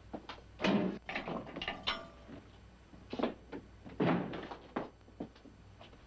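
A run of knocks and clanks from a barred jail-cell door being swung shut, with a brief metallic ring, followed by a few heavier thuds. The loudest knocks come under a second in and again about four seconds in.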